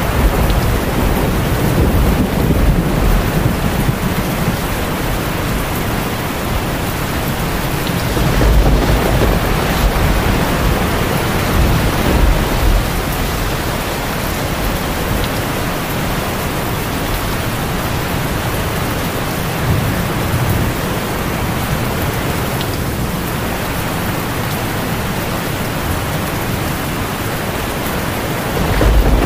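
Torrential rain pouring down steadily in a thunderstorm, with low rumbles of thunder swelling and fading, strongest about nine seconds in and again near the end.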